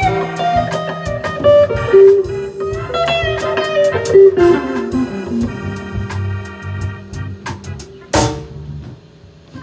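Live band playing: an electric guitar solo with bent, gliding notes over a drum kit. About eight seconds in comes one loud cymbal crash that rings on, after which the band plays more quietly.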